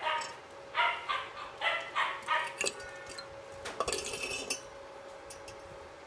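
A dog barking about five times in quick succession in the background, followed near the middle by a few sharp knocks and a brief rattle of metal parts being handled.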